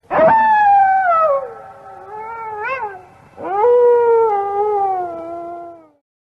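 An animal giving two long, drawn-out howling calls, each sliding down in pitch. The first lasts about three seconds with a short wobble near its end, and the second follows after a brief pause.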